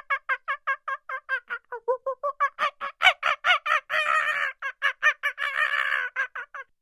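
A bird calling in a long, fast series of short, clipped notes, about five a second, louder in the middle and stopping abruptly.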